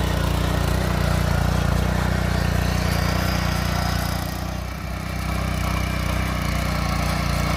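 Single-cylinder 8 HP, 270 cc petrol engine of a power weeder (power tiller) running steadily, dipping briefly about five seconds in.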